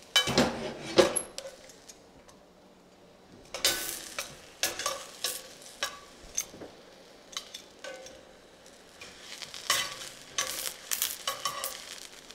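Portobello mushroom caps sizzling in a hot cast iron skillet, with tongs and a spatula clinking and scraping against the pan. A loud burst of sizzling and clatter comes right at the start, then a pause of about two seconds, then a run of sharp clinks and short sizzles.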